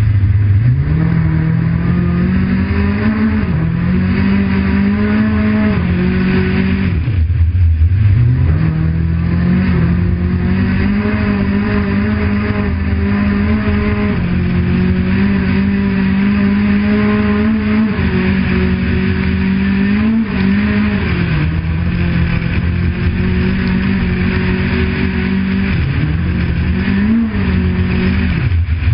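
Car engine pulling hard through the gears on a snowy road, heard from inside the car; the revs fall and climb again several times, dropping lowest about seven seconds in.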